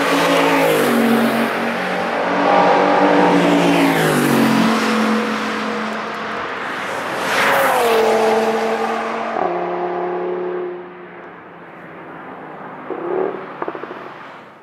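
Audi R8 sports cars passing at speed, their engine notes sweeping and stepping down in pitch as each car goes by: one pass right at the start and a second about halfway through. Later the sound is quieter, with a few short crackles near the end.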